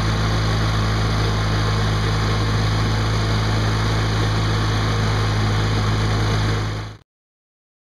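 Garden tractor's small engine running steadily with an even hum, cutting off suddenly near the end.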